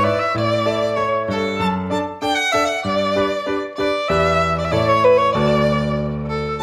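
Background music led by a violin playing a melody over a lower accompaniment.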